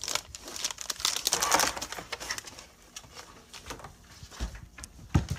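Rustling and clicking as a cat climbs through a pantry shelf among cans and a bag, with a single thump near the end.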